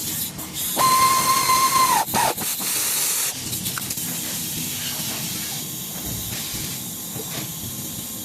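A loud steady hiss, with a high whistling tone riding on it from about a second in for just over a second.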